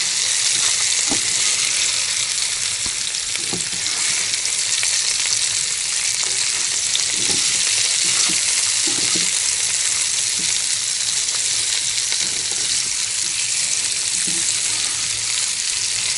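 Sliced potatoes and onions sizzling steadily as they fry in oil in a pan, with a few scrapes and knocks in the pan as they are turned and stirred.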